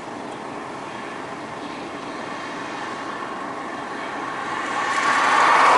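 Claas Lexion 550 combine harvester running steadily, growing louder over the last second or so as it comes closer.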